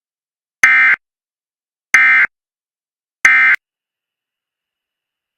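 Emergency Alert System end-of-message data bursts: three short, identical buzzy digital tone bursts about 1.3 seconds apart, signalling the end of the alert.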